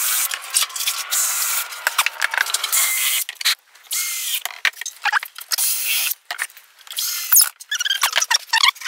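Cordless drill driving 30 × 4 mm screws into MDF panels, running in several short bursts with brief pauses between them, with squeaks near the end.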